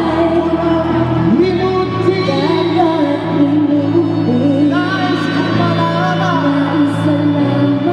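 A woman singing into a microphone over a recorded backing track, played through a PA system.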